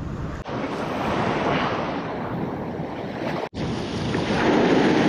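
Ocean surf surging and washing over a rock ledge, with wind buffeting the microphone. A brief break about three and a half seconds in, after which the surf is louder.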